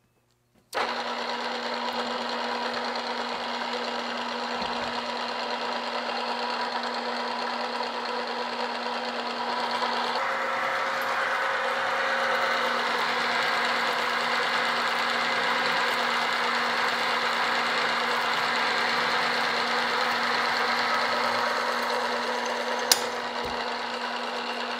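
Drill press running under its power down feed, a twist drill cutting through a block of aluminum: a steady motor-and-gear machine sound that starts suddenly about a second in. It gets a little louder and busier about ten seconds in. One sharp click near the end.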